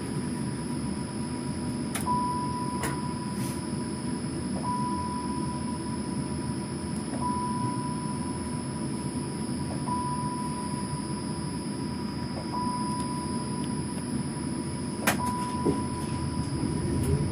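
Standing tram heard from inside the driver's cab: a steady low hum and rumble of its onboard equipment, with a single-pitch electronic beep repeating about every two and a half seconds, six times, and a few light clicks.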